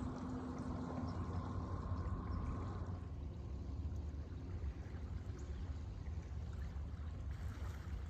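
Shallow water washing and trickling over shoreline rocks and pebbles, under a steady low rumble. A faint steady hum fades out about three seconds in.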